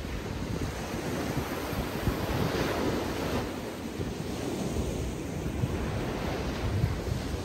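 Ocean surf breaking and washing up the beach, with wind buffeting the microphone in low rumbles; a wave swells and breaks about two to three seconds in.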